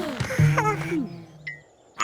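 Cartoon characters' wordless vocal noises with gliding pitch, mostly in the first second, then a short high sound-effect tone about one and a half seconds in before it goes quiet.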